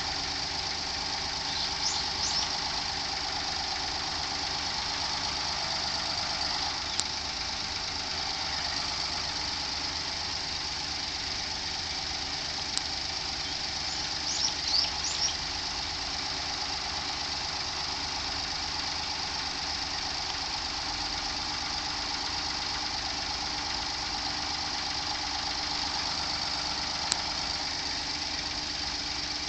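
Daihatsu Move L175S's three-cylinder kei-car engine running steadily with a rattling (ガラガラ) abnormal noise from the engine. A few short bird chirps come in over it.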